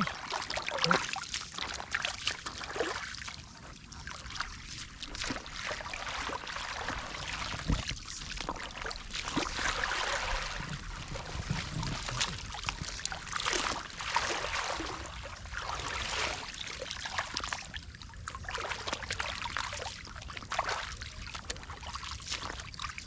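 Shallow running water trickling and splashing, with irregular small splashes.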